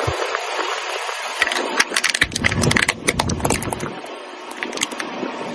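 A car's tyre rolling over and crushing Coca-Cola containers: a run of sharp crackling crunches in the middle, with the car's low rumble under them.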